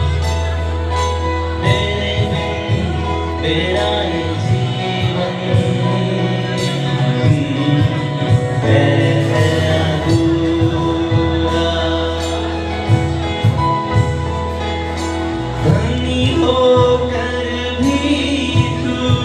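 Live Christian worship band playing loudly through a PA, with singing over drums, guitar, keyboard and a sustained bass line.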